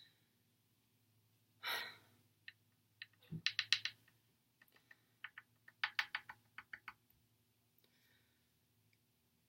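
A short, sharp breath or sniff, then two runs of quick, sharp clicking, several clicks a second, each run lasting about a second.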